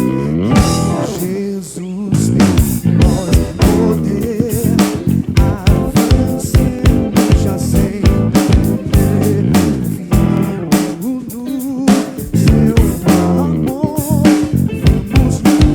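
Live soul band playing: electric guitar, bass guitar and drum kit with a steady beat, with some singing.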